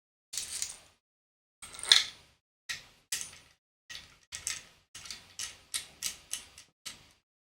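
About a dozen short, sharp clicks and scrapes at an uneven pace, the loudest about two seconds in.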